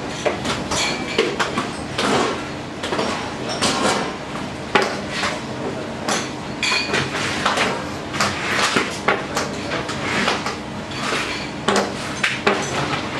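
Kitchen clatter: irregular clinks and knocks of dishes, pans and utensils being handled in a professional kitchen, with one sharper knock about five seconds in.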